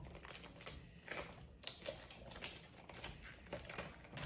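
Outer leaves being peeled off a head of red cabbage by hand: faint, irregular crisp crackles and snaps as the leaves tear away from the head.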